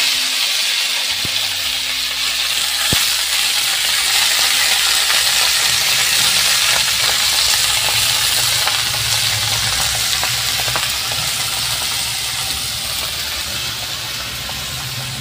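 Chopped bathua (bheto shaak) leaves sizzling in hot mustard oil in a kadai. It is a steady frying hiss, loudest at the start as the greens go in, that slowly dies down as they wilt.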